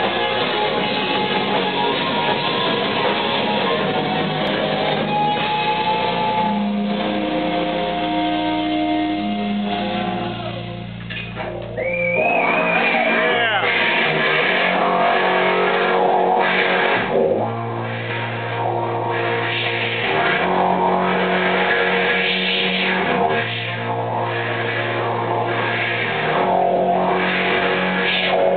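Live rock band playing, with a loud electric guitar over drums and bass. About twelve seconds in the music briefly drops, then a high wavering note comes in as the full band picks up again.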